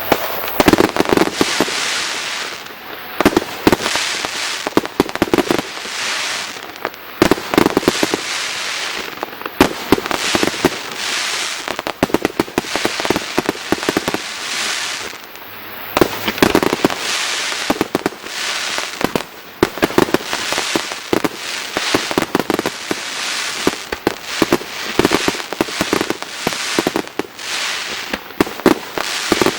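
Fireworks display: aerial shells bursting in rapid, irregular succession, sharp bangs over a constant crackle.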